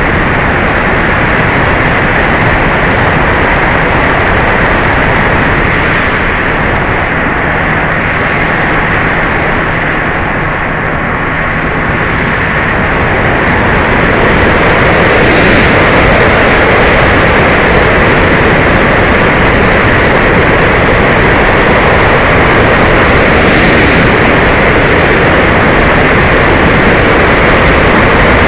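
E-Flite Apprentice RC trainer plane in flight: a loud, steady rush of electric motor and propeller noise with wind, growing louder about 14 seconds in.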